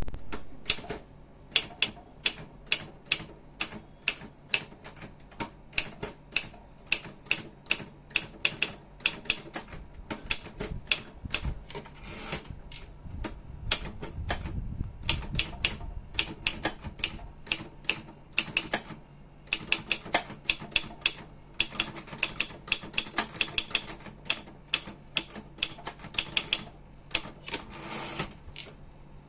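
Remington 2000 typewriter being typed on, its keys striking in quick sharp clacks a few times a second, with brief pauses between runs.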